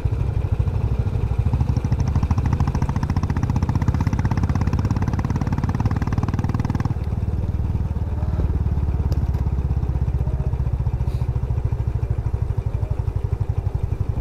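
Motorcycle engine running steadily while riding, its note turning softer and lower about halfway through.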